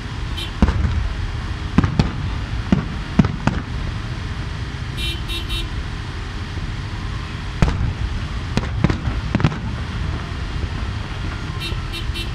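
Aerial fireworks shells bursting, sharp bangs in a rapid string over the first three and a half seconds and another cluster around eight to nine and a half seconds.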